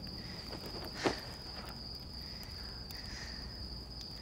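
Crickets trilling on one steady high note, with a single sharp knock about a second in.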